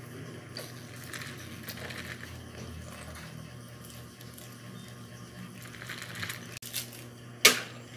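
Soft handling noises of a plastic drink cup and a paper food box: light rustles and small clicks over a low steady hum, with one sharp click about seven and a half seconds in.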